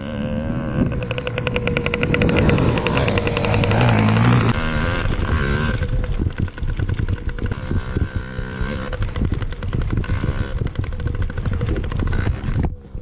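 Yamaha PW50's small two-stroke single-cylinder engine running under a rider, heard close from the handlebars. Its revs climb steadily through the first few seconds, drop, and then rise and fall repeatedly as the throttle is worked around the track.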